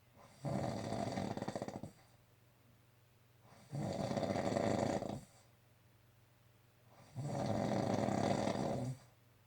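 A sleeping person snoring: three long, fluttering snores, each lasting about one and a half to two seconds, with quiet pauses between them.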